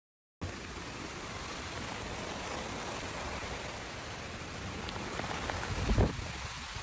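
Steady rain falling hard, beginning abruptly about half a second in, with a brief low thump of wind or handling on the microphone near the end.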